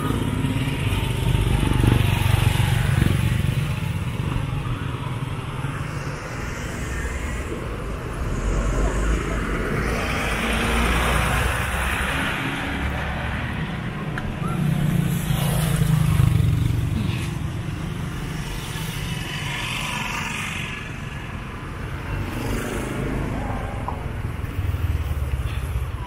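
Road traffic passing close by on the bridge, a steady low rumble with several vehicles swelling louder and fading in turn.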